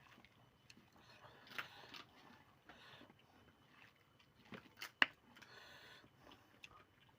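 Quiet eating sounds: chewing, with a few scattered sharp clicks, the loudest about five seconds in.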